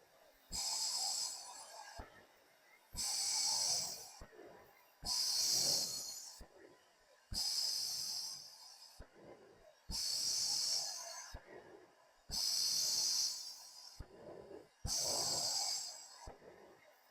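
Hissing breaths close to the microphone, about one every two and a half seconds, each starting sharply and fading away.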